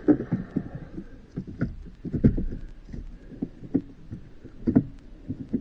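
Irregular light knocks and clatter of parts and tools being handled, about a dozen in a few seconds, with a faint steady tone near the start.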